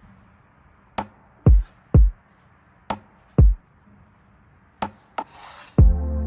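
Background music: a vocals-only nasheed beat made of sparse deep hits that drop in pitch, with a short hiss near the end.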